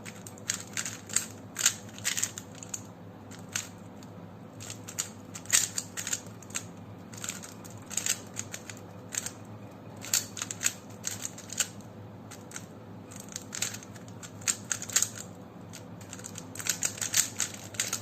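A plastic speed cube being turned by hand: quick clusters of sharp clicking turns separated by short pauses.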